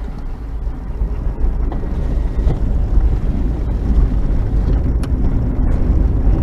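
A vehicle pulling away and picking up speed: a low rumble of engine and road noise that grows louder.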